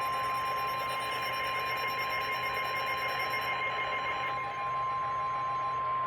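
Emergency alert tone: a single steady pitch just above 1 kHz, held unbroken. It matches the National Weather Service 1050 Hz warning alarm tone that comes before a relayed severe thunderstorm warning.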